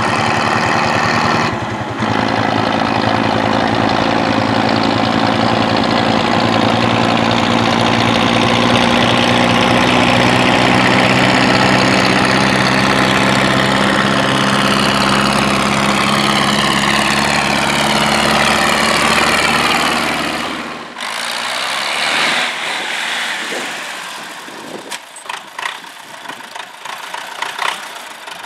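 MTZ-82 tractor's four-cylinder diesel engine running steadily as the tractor drives toward the listener. About 20 seconds in it cuts to a quieter, uneven engine sound with scattered clicks and knocks.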